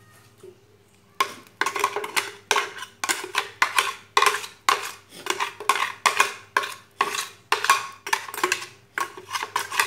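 A metal spoon scraping thick blended paste out of a plastic blender jug in quick repeated strokes, about two to three a second, starting about a second in.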